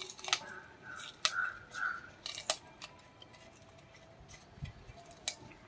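Fresh green chillies snapped and crushed by hand into an unglazed clay pot: a few sharp, crisp snaps spread through an otherwise quiet stretch.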